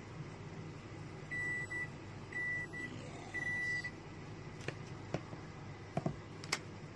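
Three identical electronic beeps, each about half a second long and about a second apart, from an appliance signal, followed by a few light clicks, all over a low steady hum.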